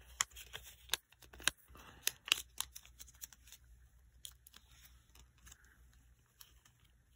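A paper banknote being folded and tucked into a plastic binder pocket: crinkling and rustling with sharp little clicks, busiest in the first few seconds and quieter after.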